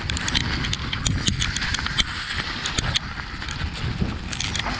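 Mountain bike riding over a dry, leaf-covered dirt trail: the tyres crunch through fallen leaves, with many small clicks and rattles from the bike over a constant low rumble.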